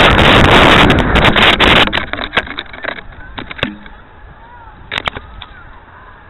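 Wind rushing over a model rocket's onboard camera microphone as it falls, cutting off about two seconds in as the rocket drops into a tree. Then a few sharp knocks and rustles from the branches, and short chirping calls of birds.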